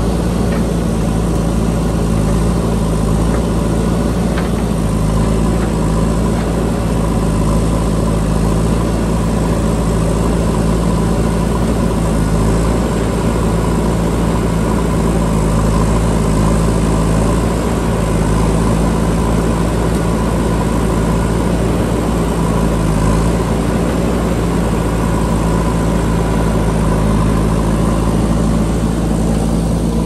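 JCB backhoe loader's diesel engine running steadily and close by as the backhoe arm digs, a constant low drone with no change in pace.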